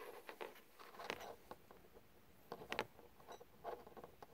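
Faint, scattered clicks and rustling of fingers handling a Mobula7 micro quadcopter while fitting its single-cell battery plug.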